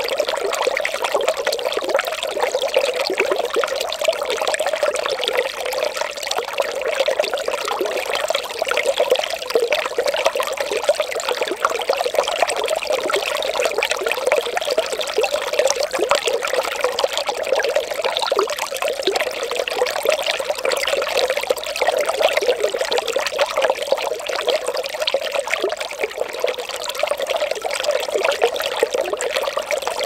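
Mountain valley stream flowing: a steady, unbroken babble of running water.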